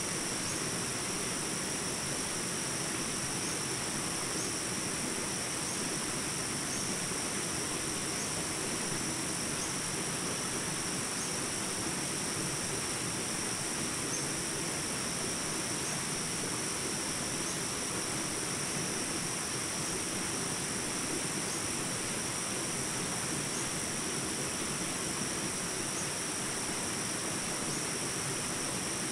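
Steady insect chorus: a continuous high-pitched shrilling over an even background hiss, with a few faint short chirps on top.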